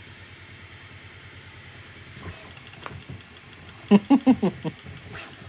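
Bambu Lab A1 Mini 3D printer printing at high speed, its motors giving a steady low pulsing hum. About four seconds in comes a quick run of five loud pitched pulses.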